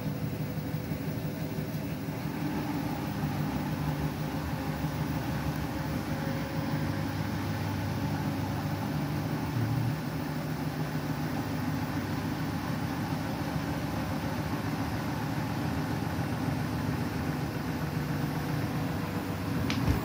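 Beko WTK104121W front-loading washing machine spinning its drum at speed: a steady motor hum and whir with a faint constant tone.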